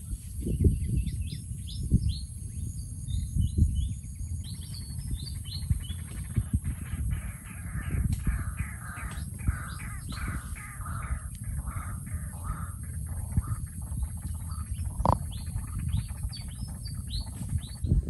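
Wild birds calling over a gusty low rumble of wind on the microphone. Quick high chirps come in the first few seconds and again near the end, and a run of lower, rougher calls repeats about twice a second in the middle. A single sharp click comes about fifteen seconds in.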